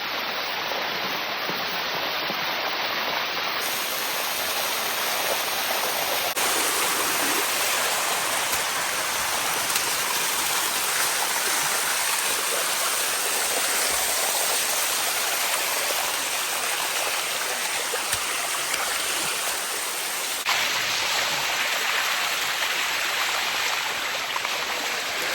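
Water rushing down a limestone cascade waterfall: a steady, dense rushing noise that jumps abruptly in level and tone a few times.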